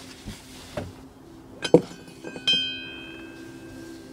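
Steel and bronze parts of a Harken sailing winch clinking as the winch is taken apart and its geared spindle lifted out: a few sharp clinks, the loudest near the middle, then a part rings on in a clear metallic note that fades slowly. A steady low hum runs underneath.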